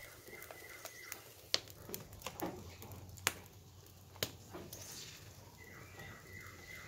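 Wooden chopsticks clicking sharply against a frying pan a few times as cassava cakes are turned. A bird calls twice in the background, a held note with a run of short falling notes.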